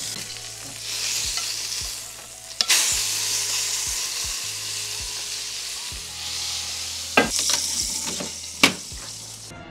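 A porterhouse steak searing in a hot cast-iron pan as it is flipped with tongs: a steady, loud sizzle, with a sharp clack about two and a half seconds in after which the sizzle grows louder. A few metal clicks near the end.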